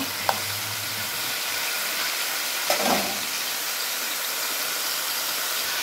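Chicken pieces sizzling in hot oil in a pan: a steady frying hiss, with a light click about a third of a second in.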